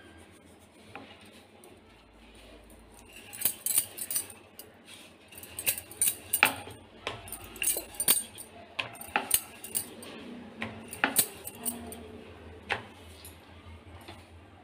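Kitchen utensils and a plate being handled, with a run of sharp, irregular metallic clinks and knocks for most of the time, stopping shortly before the end.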